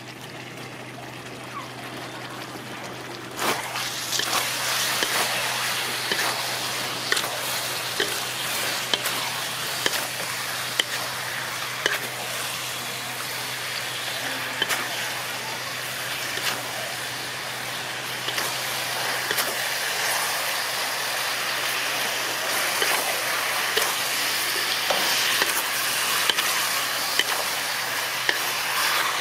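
Food sizzling and frying in a thick sauce in a large metal wok, with a wooden spatula stirring and scraping against the pan in many small clicks. The sizzle is quieter at first and jumps up suddenly about three and a half seconds in. A steady low hum runs underneath.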